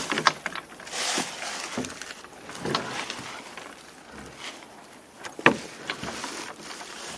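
Irregular footsteps crunching on dry ground and rustling through dry weeds and grass, with a sharper crunch about five and a half seconds in.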